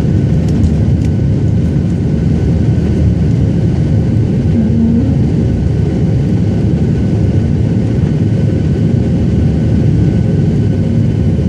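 Boeing 737 jet engines heard from inside the passenger cabin, a loud steady low rumble with a faint whine on top, during the climb after takeoff.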